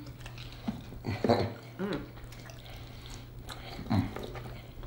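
Close-up eating sounds: wet chewing and sucking of meat off hot-wing bones, with a couple of short hums of enjoyment about 1.5 s and 4 s in, over a steady low electrical hum.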